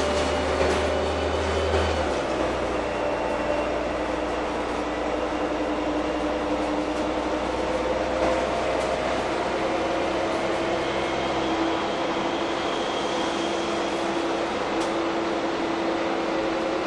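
Heuliez GX317 LPG city bus heard from inside the passenger cabin while running: a steady engine and drivetrain drone with a held whine. A deeper rumble drops away about two seconds in, and a few clicks and rattles come near the start and once near the end.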